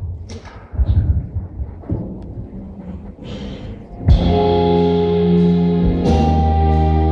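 Scattered knocks and thumps for about four seconds. Then an orchestra comes in with sustained chords of strings and brass over low bass notes, with a second accented chord about six seconds in.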